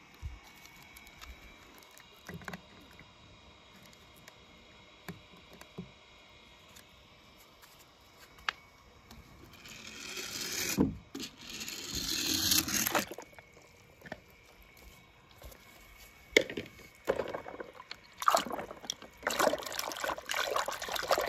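Water sloshing and splashing in a plastic tub as a hand stirs through it among small plastic toy cars. The first half is quiet with a few light taps; about halfway a rushing swell of water comes in, and the last third is busy, irregular splashing.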